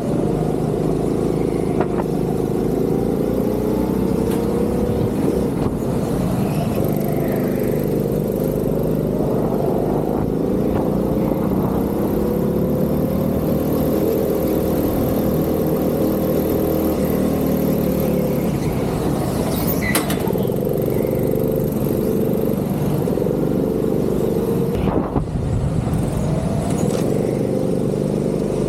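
Go-kart engine running hard on track, recorded onboard, its revs rising and falling over and over as the kart accelerates and slows through corners. There are a couple of short sharp clicks along the way.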